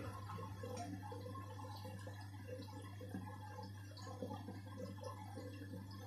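LG WD-80490S front-loading washing machine in its wash phase: wet laundry tumbling and sloshing in the drum over a steady motor hum.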